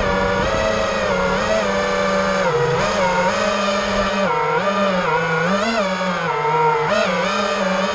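FPV quadcopter's electric motors and propellers whining, the pitch rising and falling over and over as the throttle changes.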